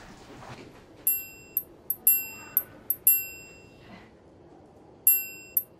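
Background music: a bright, bell-like chime figure of high struck notes. It comes in about a second in, and the same quick group of strikes repeats about every two seconds.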